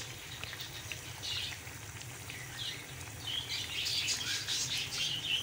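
Potato pakoras deep-frying in hot oil: a steady sizzle with fine crackling, louder and busier from a little past halfway.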